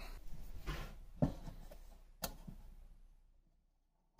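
A phone being handled and set down: about three light knocks with rustling between them, dying away near the end.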